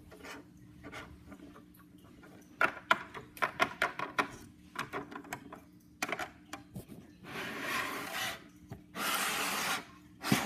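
Handling noise from plastic toys being moved about: a quick run of sharp taps and clicks a few seconds in, then several bursts of rubbing as a sleeve and hand brush across the microphone.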